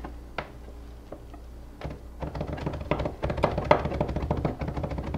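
Chef's knife mincing garlic on a plastic cutting board: a few single taps of the blade, then from about two seconds in a fast, rapid run of chopping knocks against the board.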